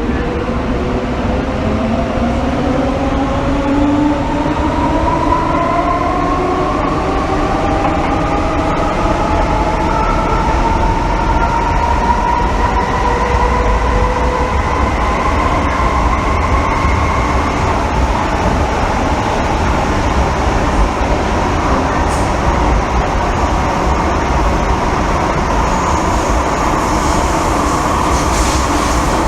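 MTR M-Train electric multiple unit heard from inside the car while accelerating. The traction motors give a whine that rises in pitch over several tones for most of the first 18 seconds, then levels off as the train runs at speed. A steady low rumble from the wheels and track runs underneath.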